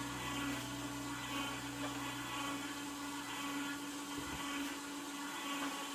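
Juico Uno upright slow (cold-press) juicer running: a steady motor hum as its slowly turning screw crushes the produce dropped into the chute, with a deeper hum that stops about four seconds in.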